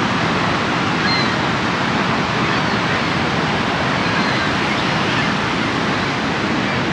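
Niagara Falls' water pouring down, a steady, loud rush of even noise that never lets up.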